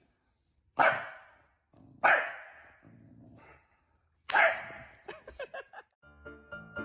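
A dog barking three times, loud, with a second or two between barks.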